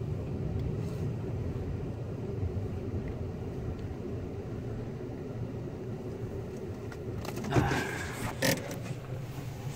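Car cabin noise: the engine and tyres give a steady low rumble as the car rolls slowly to a stop. A couple of brief clatters come near the end.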